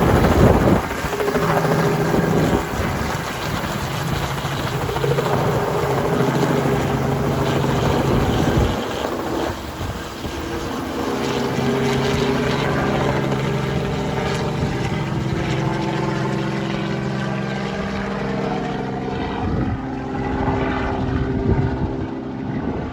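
Robinson R44 Clipper II helicopter running, its six-cylinder Lycoming engine and rotor giving a steady drone. The sound dips and shifts briefly about nine seconds in, then settles again.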